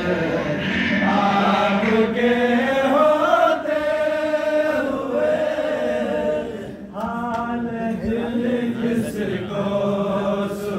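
A male naat reciter singing an unaccompanied devotional naat into a microphone, with long, held, sliding notes over a steady low hum.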